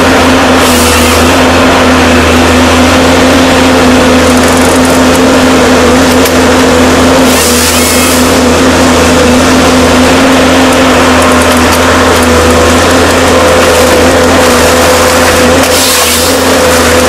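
Diesel engine and hydraulics of a single-grip forestry harvester running steadily under load, with a constant hum and whine while the Log Max harvester head works the trees. Two short hissing bursts cut in, one about halfway and one near the end.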